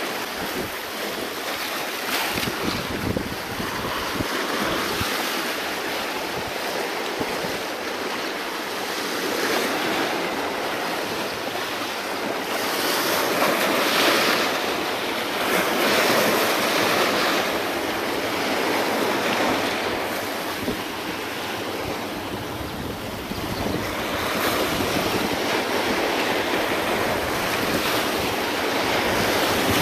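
Sea waves washing and breaking against a rocky shore, surging louder and softer every few seconds, with wind buffeting the microphone.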